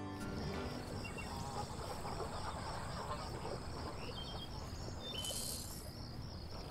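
Marsh ambience: a steady insect chorus pulsing about three times a second, with a few short bird calls over a soft outdoor hiss. The end of a music sting fades out at the very start.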